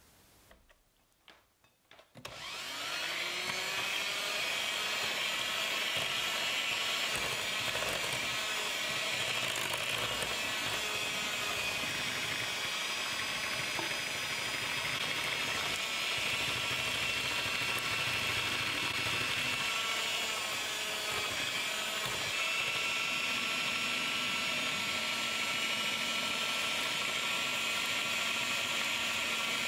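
Electric hand mixer starting up about two seconds in, after a few small clicks, and then running steadily with a motor whine as its beaters cream butter and sugar in a glass bowl.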